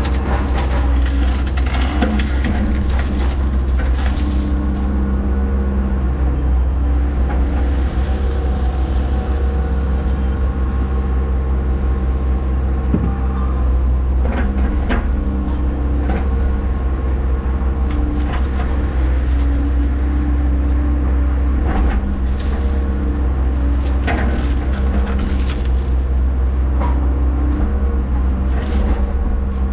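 Hyundai HX140AL excavator's diesel engine running steadily as the machine works, its pitch shifting a little as the hydraulics take load, with scattered knocks and clanks.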